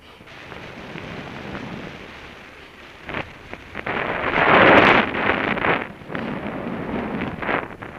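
Wind buffeting the camera microphone in flight under a paraglider: a gusting rush of air that swells to its loudest about halfway through, then eases and surges again.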